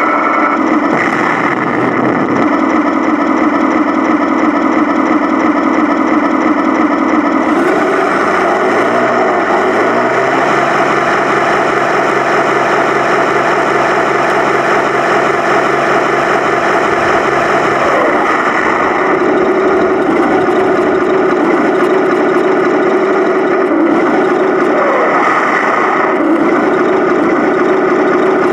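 Tamiya 1/16 RC tank's electronic engine sound from its onboard speaker, running steadily and changing pitch a few times as the tank drives and turns, mixed with the whine of its drive gear motors.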